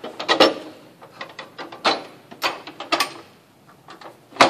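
Irregular metallic clinks and knocks of a steel suspension cross member and its bolts being handled and fitted into place, with a sharper knock near the end.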